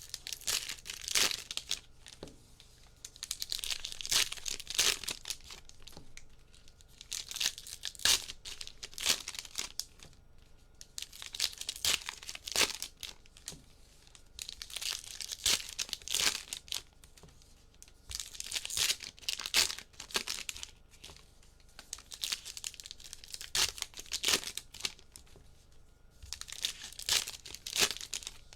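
Trading card pack wrappers being torn open and crinkled by hand, in repeated bursts of crackling with sharp clicks every second or two.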